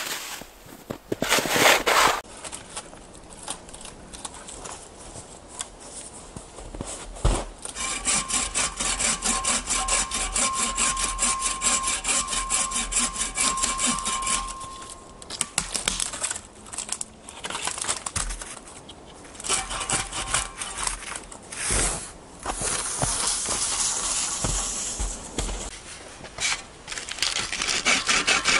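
Hand saw cutting through dead branches in several bouts of fast, even back-and-forth strokes, with a few sharp knocks between bouts.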